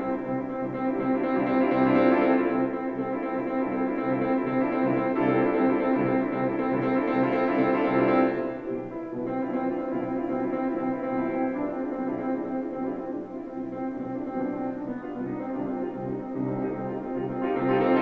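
Grand piano playing a solo piano prelude in dense held chords. The music swells about two seconds in and again around eight seconds, falls back softer just after that, and builds again near the end.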